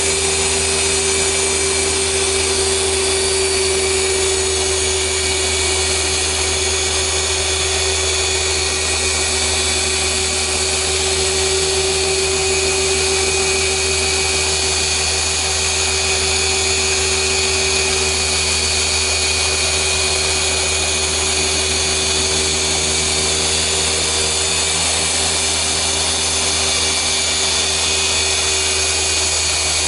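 Rupes LHR 15 random-orbital polisher running steadily with a foam pad working polish into car paint during defect correction. It gives a continuous motor whine over a low hum.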